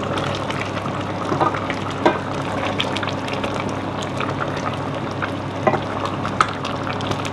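Pot of basil pepper soup bubbling at a simmer while a wooden spatula stirs it, with scattered light knocks and scrapes of the spatula against the stainless steel pot.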